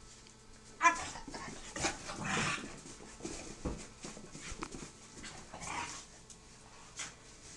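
Two dogs play-fighting, with a sharp yelp about a second in, then whimpering and panting.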